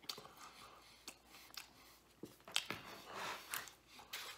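Faint, scattered small clicks and rustles of hands handling food.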